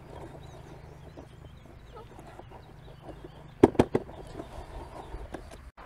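Hands working damp groundbait mixed with clay in a plastic bowl: soft handling sounds with small ticks, and a quick cluster of sharp knocks a little past halfway as the bait is pressed and patted.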